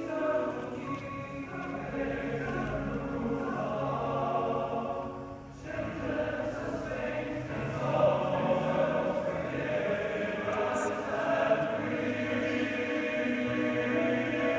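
Men's choir singing sustained chords in several parts, breaking off briefly about five and a half seconds in and then coming back in fuller.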